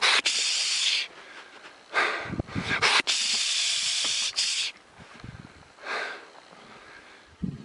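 Loud rushes of hissing noise: one about a second long at the start, a longer one of nearly three seconds from about two seconds in, and a shorter one near six seconds, with a sharp click about three seconds in.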